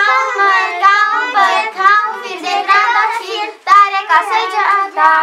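Several young children chanting a New Year's well-wishing verse together in Romanian, in a sing-song voice, at a house door.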